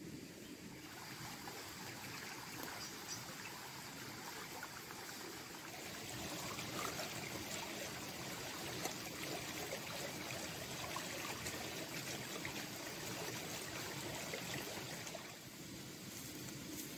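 Water trickling steadily, growing louder about six seconds in and easing off again near the end.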